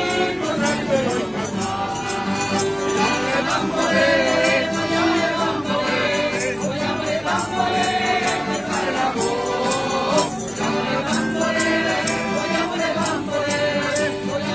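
A Tuscan maggiolata (traditional May song) sung by a mixed group of voices together, accompanied by accordion and acoustic guitars, with a tambourine keeping a steady beat.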